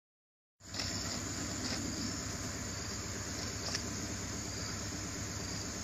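Silence, then about half a second in the steady background noise of an outdoor phone recording cuts in abruptly: a constant hiss with a low hum underneath.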